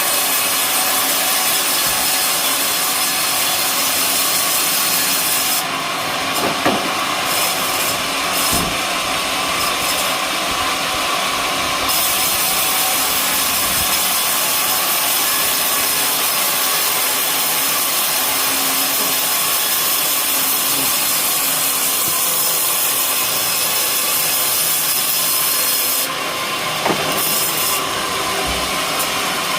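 Homemade sawmill's blade cutting lengthwise through an old coconut palm trunk: a steady, loud hiss of sawing. About six seconds in, and again near the end, the highest part of the hiss drops away for a few seconds, with a few short knocks.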